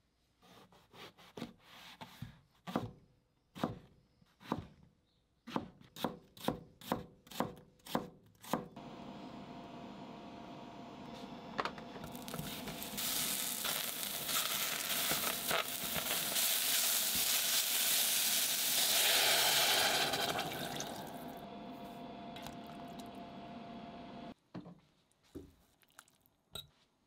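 A kitchen knife chopping eggplant on a cutting board, a run of sharp chops. Then eggplant and onion sizzle in sesame oil in a stainless saucepan as a spatula stirs, the sizzling growing loud and then dying down. Near the end there are a few light clinks of a whisk against the pot.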